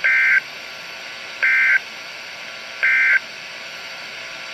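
Three short bursts of EAS/SAME digital data tones, each a rapid warble between two pitches, about one and a half seconds apart, over weather-radio static: the end-of-message code that closes a flood warning broadcast.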